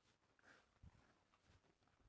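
Near silence, with two or three faint low thumps around the middle.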